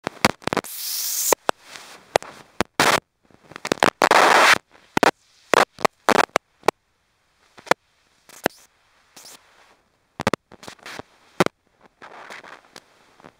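Air bubbles rising underwater, heard as an irregular run of sharp clicks and pops with short rushing bursts of bubbling, the longest about a second in and about four seconds in.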